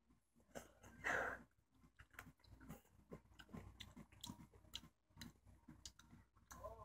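Soft wet clicks and smacks of a ripe peach being handled, peeled and eaten close to the microphone, with a short rustling burst about a second in.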